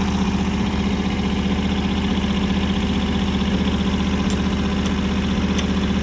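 Briggs & Stratton Vanguard 16 HP V-twin engine of a Timbery M280 portable band sawmill running steadily at idle, with a few faint ticks in the second half.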